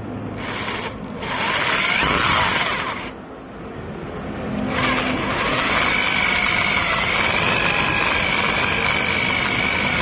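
Electric drill with an 11 mm bit boring out the stripped spark-plug hole in a motorcycle's aluminium cylinder head, so that it can be re-tapped for a larger plug. The drill runs in three bursts, pausing about a second in and again about three seconds in; the last and longest run carries a steady whine.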